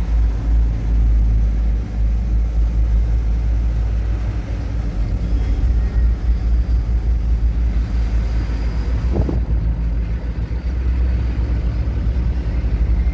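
Truck engine and road noise heard inside the cab while driving, a steady low rumble.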